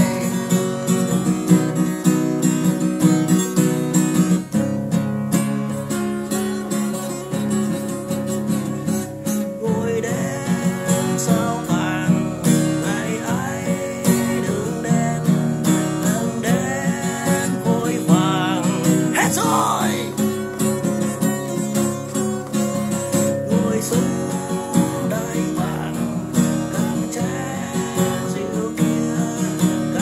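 Acoustic guitar playing a song, with a man singing over it; about two-thirds of the way through he holds a note with a wavering vibrato.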